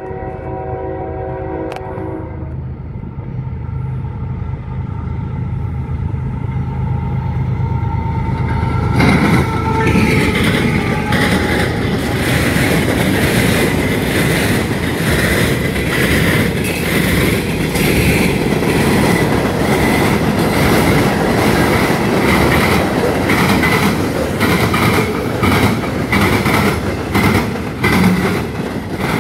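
CSX manifest freight train passing at a grade crossing. The diesel locomotive's horn ends about two seconds in. The engine rumble then builds as the locomotive approaches and goes by about nine seconds in, followed by the steady clatter of freight cars with rapid repeated wheel clicks.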